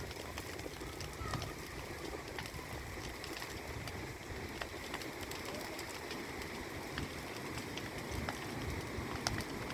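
Bonfire of burning timber and firewood crackling, with scattered sharp pops over a low steady rumble.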